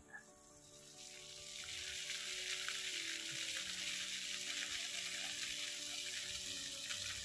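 Water jets of an illuminated fountain spraying and splashing, a steady hiss that swells about a second in as the jets shoot up.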